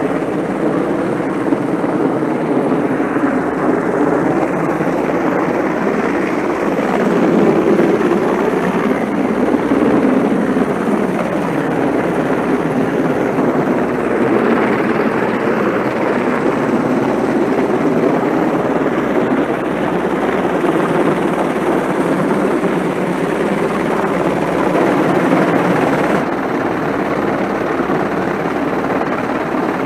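AgustaWestland EH101 Merlin rescue helicopter hovering low overhead, a steady loud rotor and turbine noise that swells a little between about seven and eleven seconds in.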